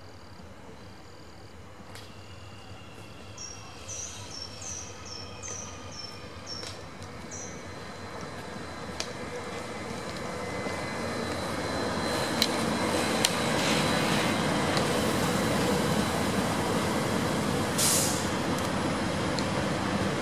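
Electric suburban multiple-unit train approaching and passing close by. Its running and rail noise grows steadily louder from about halfway through, with a few sharp clicks and a short hiss near the end. Before the train arrives, a bird chirps a string of short high notes.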